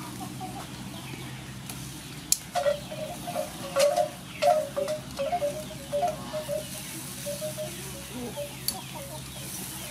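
A chicken clucking in a run of short, irregular calls starting a couple of seconds in, with a few sharp clicks among them.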